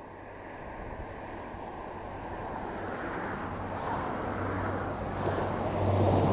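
Diesel multiple-unit passenger train approaching, its engine drone and wheel rumble growing steadily louder.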